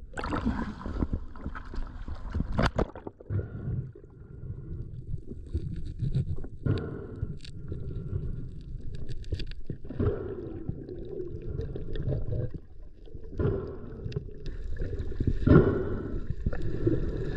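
Underwater camera audio: muffled rushing water and gurgling, with a few scattered knocks and clicks from handling a speared grouper.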